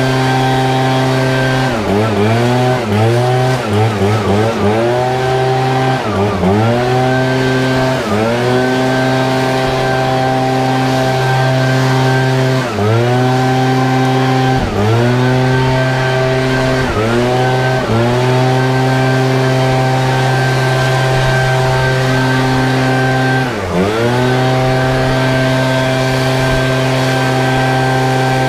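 ECHO PB-8010 backpack leaf blower's two-stroke engine running near full throttle with a rush of air. Its pitch drops and climbs straight back again and again, quickly several times at the start and then every few seconds, as the throttle is eased and reopened.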